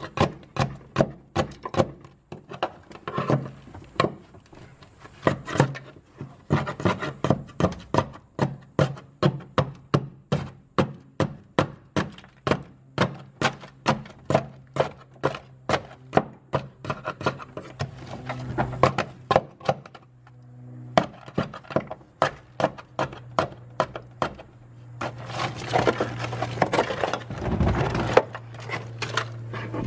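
A metal scraper chipping dry-ice-frozen sound deadening off a car's sheet-metal floor pan: quick sharp knocks, about two to three a second, as the brittle deadening cracks and pops off. The knocks pause briefly about two-thirds of the way through, and a few seconds of scraping follow near the end.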